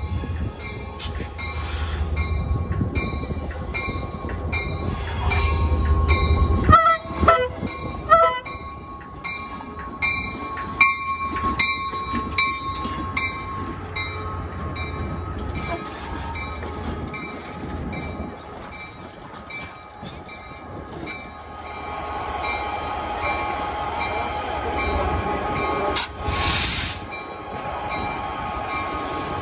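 Santa Fe #108 diesel locomotive rolling in and running alongside, its engine rumbling low, with a few short squeals about seven to eight seconds in. A loud hissing burst lasting about a second comes near the end.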